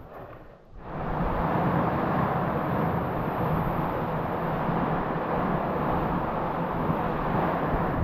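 Steady rushing of wind on the microphone, starting about a second in.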